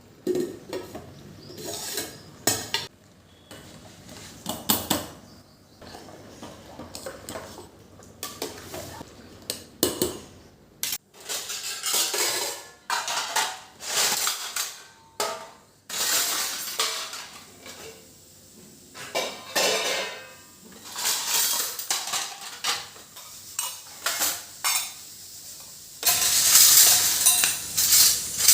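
Dishes, pots and cutlery clinking and clattering irregularly as kitchen work goes on, with a steady hiss taking over near the end.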